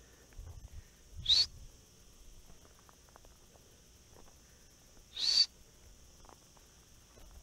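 A person whistling twice, about four seconds apart, each a short, loud rising whistle, calling a dog. A steady high insect buzz runs underneath.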